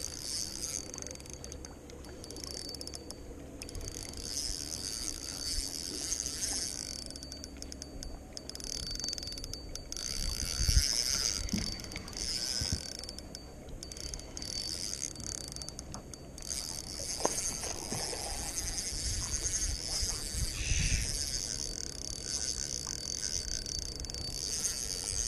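Spinning reel being cranked in spells, its gears clicking and whirring, while reeling in a hooked bass.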